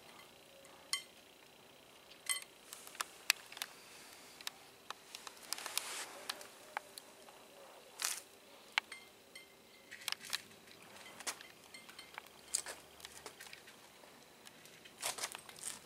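Irregular light clicks and clinks: a cat eating dry kibble from a steel bowl, the kibble rattling against the metal, with faint crinkling as a cat noses a small plastic bag.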